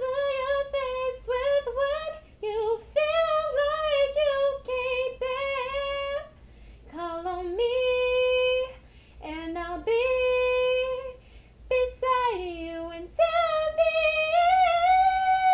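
A woman singing unaccompanied, with wavering vocal runs in the first few seconds and then long held notes, the longest near the end.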